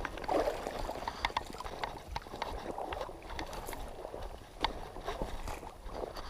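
Water splashing and sloshing, with many small irregular clicks and knocks, as a chub is handled and let go in the water.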